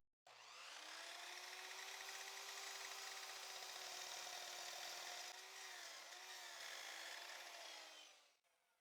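Electric miter saw running and cutting through a block of wood, heard faintly: a steady motor hum with a hiss of cutting that wavers about six seconds in and stops near the end.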